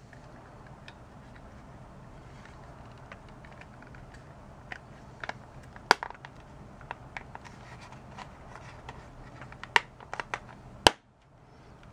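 Small plastic clicks, taps and scrapes as the Motorola Minitor V pager's case parts are handled and fitted together, over a low steady hum. A few sharper snaps stand out about six seconds in, near ten seconds, and loudest just before eleven seconds, when the hum cuts out.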